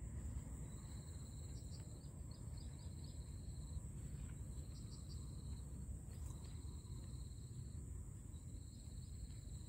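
Insects trilling outdoors: four runs of a high, pulsed trill, each lasting a second or two, over a steady very high whine and a low rumble.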